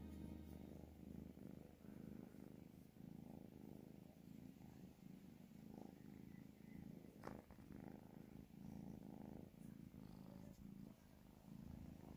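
Kitten purring faintly and steadily, close up, while it is stroked under the chin. A single short click sounds about seven seconds in.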